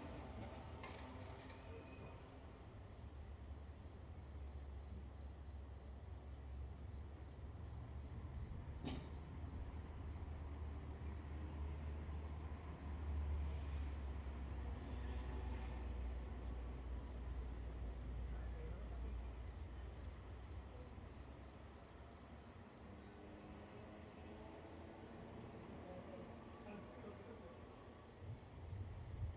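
Crickets chirping in a steady, fast pulsing trill, over a low rumble of distant thunder that swells and fades through the middle. A single faint click comes about nine seconds in.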